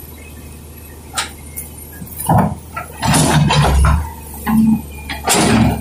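Excavator engine running, with clinks and knocks of the steel bucket against a metal fuel drum as the bucket tips it; the knocks and louder bursts start about two seconds in.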